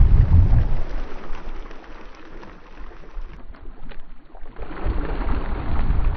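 Wind rumbling on the microphone over open water. From about halfway through, a school of small fish splashes at the water surface with a crackling patter of splashes over the wind rumble.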